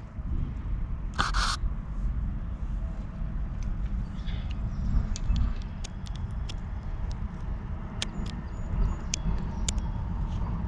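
Light clicks and taps of small metal baitcasting-reel parts being handled and fitted, with a short scraping hiss about a second in, over a steady low rumble.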